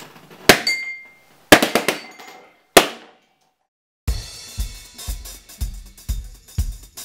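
Rubber balloons bursting in quick succession: a single sharp bang, a rapid cluster of four or five bangs about a second later, then one more. About four seconds in, background music with a steady drum beat starts.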